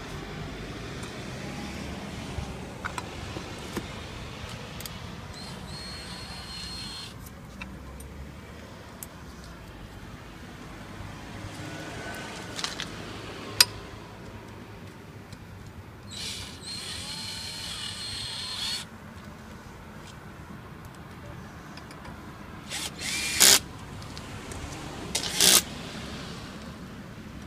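Cordless drill running in two runs of about two seconds each with a steady high whine, as it works on the clutch of a lifting hook's mechanism. A sharp click comes about halfway, and two short loud bursts near the end.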